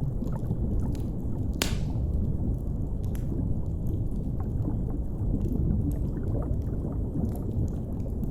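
Deep underwater ambience, a steady low rumble, overlaid with the crackle of a wood fire: scattered small snaps and one sharp pop about a second and a half in.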